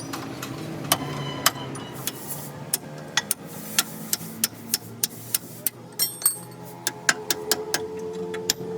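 Hand tools striking metal in a string of sharp, irregular clinks and taps, roughly two a second, one of them ringing briefly partway through, over a steady low hum.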